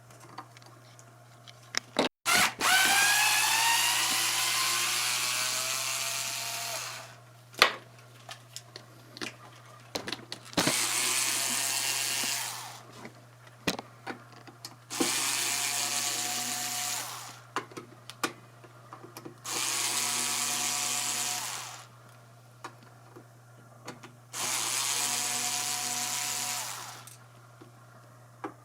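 Electric drill-driver run in five bursts of two to four seconds, taking screws out of an electric guitar, with small clicks and knocks between the bursts. The first and longest run rises in pitch as the motor winds up.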